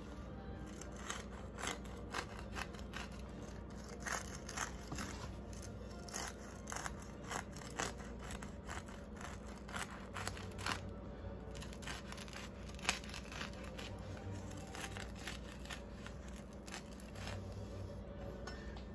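Knife sawing horizontally through the baked crust and crumb of a focaccia loaf to split it in half: a run of short, irregular scraping strokes.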